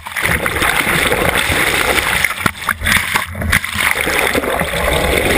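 Water rushing and splashing around an underwater camera on a yacht's bow as the boat moves through the sea: a loud, steady hiss with scattered sharp knocks and splashes.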